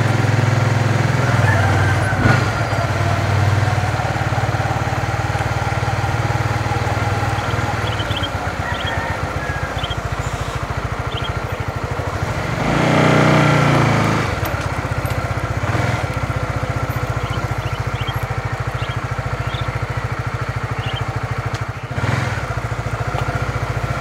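Motorcycle engine running steadily with an even low putter. It swells loudest about halfway through as it rides past close by.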